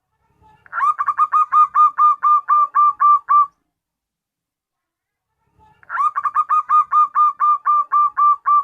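Zebra dove (perkutut) calling: two runs of short, evenly spaced notes at about five a second, each run lasting under three seconds, the second starting about six seconds in.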